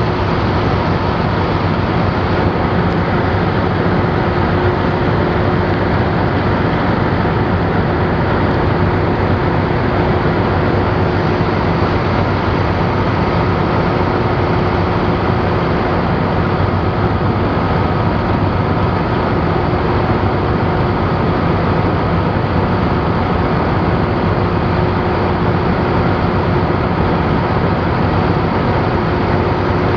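Cummins ISX15 14.9-litre inline-six turbo diesel idling steadily, with an even low drone and a couple of faint steady whines above it.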